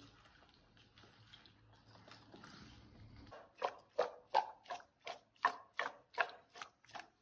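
Raw chicken pieces with shallots, garlic and oil being mixed and tossed by hand in a steel bowl, making wet squelching sounds. The squelches are soft at first and, from about three seconds in, turn into a steady rhythm of nearly three a second.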